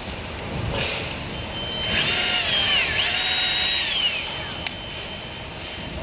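Electric drill running in two bursts of about a second each: the pitch drops through the first, then jumps back up, holds steady and winds down as the trigger is released.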